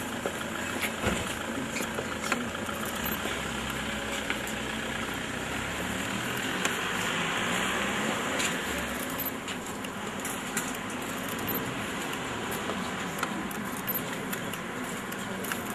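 Steady bustle of a crowd milling about outdoors: shuffling and rustling, with many scattered clicks and light clatter.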